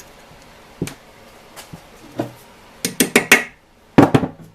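Metal parts clanking as a Model T pedal and its hardware are handled and fitted onto the transmission cover: a few scattered knocks, then two quick flurries of sharp, ringing clanks about three and four seconds in.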